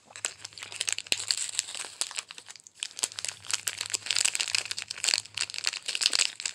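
Plastic candy packet crinkling as it is handled, a dense crackle that swells and fades, loudest about a second in and again from about four seconds in.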